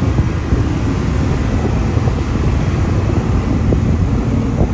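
Off-road tour truck driving through sand dunes: a steady low engine and road rumble, with wind buffeting the microphone.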